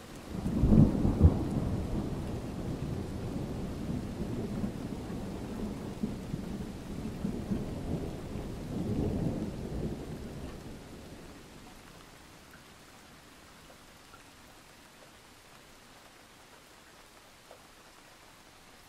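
A roll of thunder: a sudden low rumble about half a second in that rolls on, swells again around nine seconds and dies away after about eleven seconds, over a faint steady hiss.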